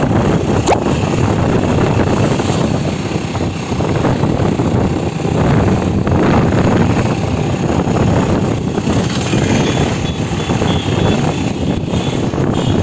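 Steady, loud rumble of a moving vehicle: engine and road noise with some wind on the microphone. There is one brief sharp click less than a second in.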